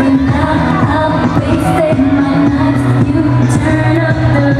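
A woman singing a pop song live into a microphone over backing music, heard through a loud PA system.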